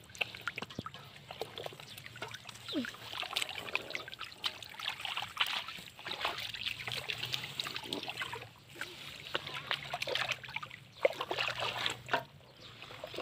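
Water splashing and trickling in many small irregular splashes.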